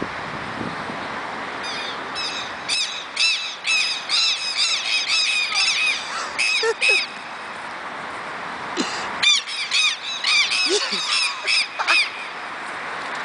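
Southern lapwings (quero-queros) giving harsh, rapidly repeated alarm calls, about three a second, in two bouts with a short break between. The birds are diving at an intruder on their ground.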